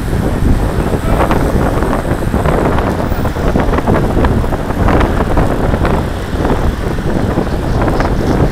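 Wind rushing over the microphone of a camera on a moving road bike, with rumble from the tyres on the road underneath.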